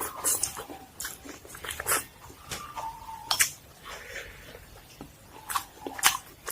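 Close-miked eating sounds: biting and chewing with irregular wet clicks and smacks of the mouth.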